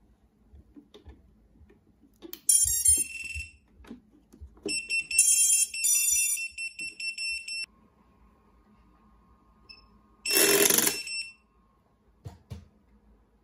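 A Holybro Kopis Cinewhoop FPV drone's motors playing the ESC start-up beeps as its LiPo battery is plugged in: a quick rising run of tones, then a longer patterned series of beeps, followed by a faint steady tone. About ten seconds in comes a brief, loud, rough burst.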